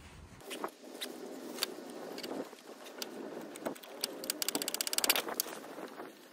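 Socket ratchet working on the alternator's 13 mm mounting bolts: scattered single clicks and knocks, then a quick even run of ratchet clicks, about a dozen a second, a little past the middle.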